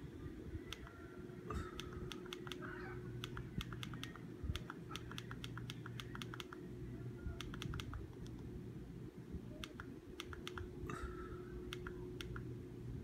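Quick runs of small plastic clicks from a TV remote's buttons being pressed over and over, several a second in bursts, to dismiss a crash dialog that keeps reappearing. A low steady hum runs underneath.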